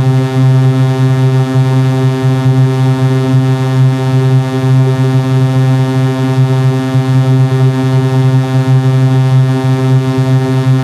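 Synthesized buzzing drone: one low tone with many overtones, held at the same pitch without a break, at an even, loud level.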